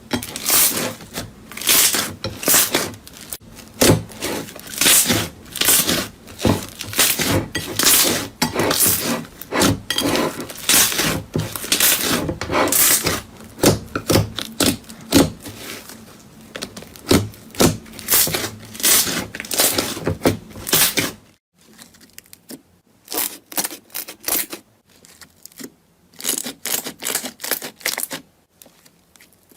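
Slime being squeezed and pressed by hand, giving rapid crackling and popping clicks. About two-thirds of the way through, the clicks become sparser and quieter.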